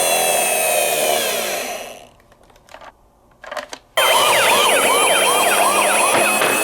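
Electronic siren sound from a toy emergency-vehicle minicar: one siren tone fades out about two seconds in, a few small clicks follow, then about four seconds in a fast yelping siren switches on abruptly, sweeping about three times a second.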